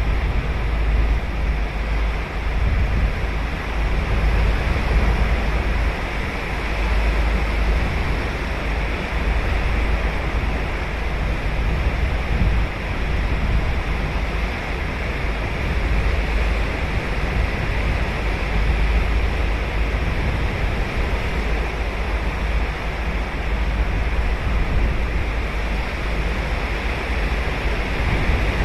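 Ocean surf washing steadily onto a sandy beach, swelling and easing gently, over a deep continuous rumble.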